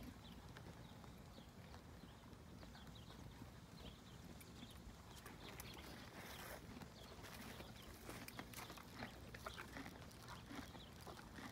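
Faint hoofbeats of a horse moving on the soft dirt of a riding arena: scattered light thuds and clicks, more frequent in the second half, over a low steady rumble.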